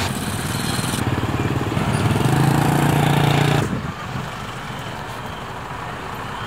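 A motor engine idling with a fast, even throb, which stops about three and a half seconds in and leaves a quieter steady outdoor background.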